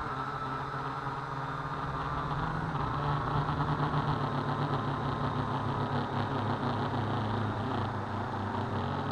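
Syma X8 quadcopter's four motors and propellers running in flight, heard from the action camera bolted to the frame: a steady whine over a low hum. The pitch wavers slightly as the throttle changes, and it grows a little louder a few seconds in.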